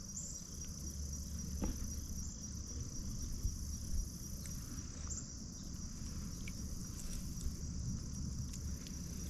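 Insects trilling in one steady high-pitched tone, with a low rumble underneath.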